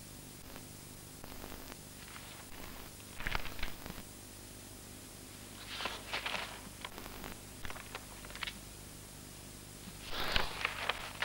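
Quiet soundtrack hiss and hum with a few faint rustles and scrapes: a cigarette being stubbed out in an ashtray about six seconds in, and the rustle of fanfold computer printout paper being handled near the end.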